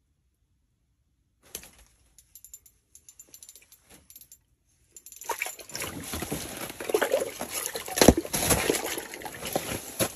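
Light, irregular clicking from the ice rod's reel, then from about five seconds in loud water splashing and sloshing with knocks as a crappie is hauled up through the ice hole and grabbed while it flops. A sharp thump comes about eight seconds in.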